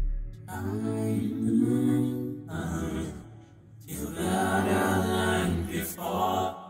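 Music: layered, wordless vocal harmonies holding sustained chords in two long phrases, with a brief lull in the middle.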